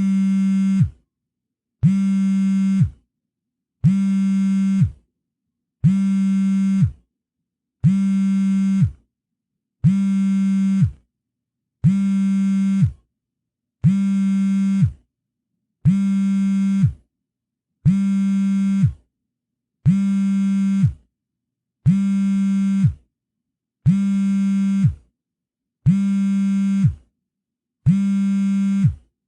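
Cell phone on vibrate, buzzing in a steady pattern: a low buzz about a second long, then a second's pause, repeated fifteen times.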